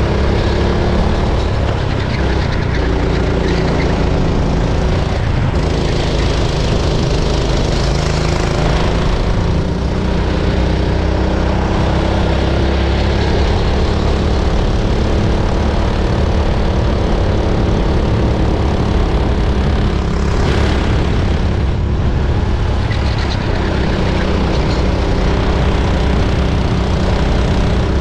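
Go-kart engine running at racing speed, heard close up from onboard, its pitch falling and rising again as the throttle comes off and back on through the corners.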